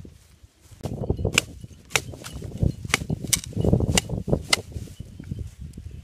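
Thin wooden sticks knocking and scraping together as they are stacked into a trap frame on dirt: about half a dozen sharp clacks over low rustling and scraping.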